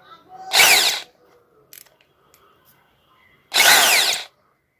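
Corded 500-watt electric drill run in two short bursts, its motor whining up in pitch and winding down each time.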